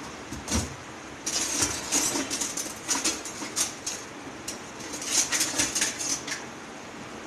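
A metal spoon knocking, scraping and clinking against a metal cooking pot, as when korma is scooped out to layer onto the rice. A single knock comes first, then from about a second in a quick, irregular run of scrapes and clinks that stops shortly before the end.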